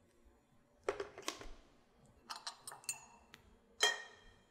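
Kitchen items being handled on a countertop: a couple of knocks, a quick run of light clicks, then a clink that rings briefly near the end, as a kettle and stirring spoon are moved and picked up.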